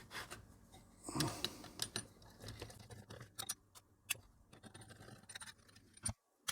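Scattered light clicks and rattles of small parts being handled: wires, crocodile clips and a bulb in a Christmas tree base. The sound breaks off abruptly near the end.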